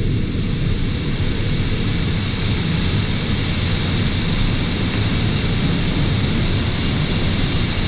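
Heavy rain falling, a steady dense hiss over a low rumble.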